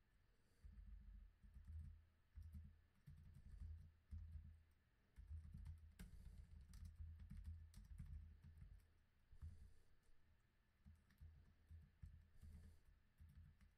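Faint typing on a computer keyboard: irregular key clicks and soft taps as text is edited.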